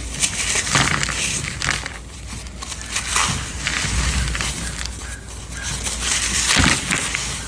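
Crumbly, powdery material being crushed, giving a run of irregular crisp crunches and crackles.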